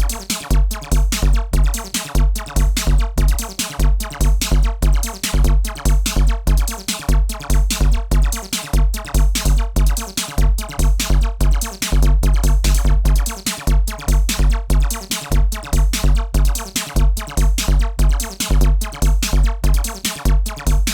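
Electronic dance music from a DJ set: a drum machine beat with deep, pulsing bass kicks in repeating phrases with short breaks, dense crisp percussion on top, and a steady synthesizer tone.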